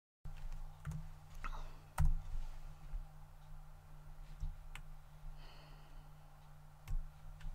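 Computer mouse clicks and scroll-wheel clicks, a handful of sharp separate clicks spread over several seconds, the loudest about two seconds in, over a low steady hum.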